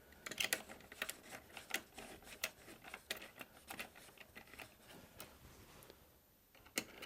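Faint, irregular small metal clicks and ticks of a rack screw being driven into a cage nut on a rack rail. They thin out to near silence for about a second near the end, then one more click.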